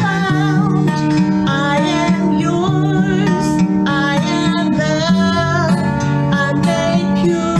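A woman singing a slow worship song, accompanied by a Takamine acoustic guitar.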